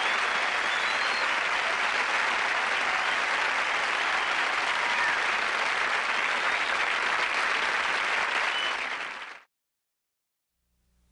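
Studio audience applauding steadily, with a few whistles in the first second, then fading out about nine seconds in.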